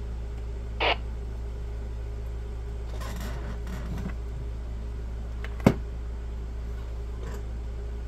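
Handheld radio being handled and swapped on a desk: a short burst of sound about a second in, a brief rustle around three seconds, and a sharp knock near six seconds as a radio is set down, over a steady low hum.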